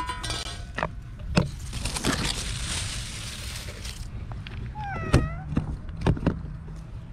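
A street cat meows once, about five seconds in, with short taps and a couple of seconds of rustling noise before it.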